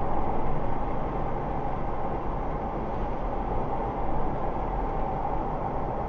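A car driving along a road: steady tyre and road noise with a low engine rumble.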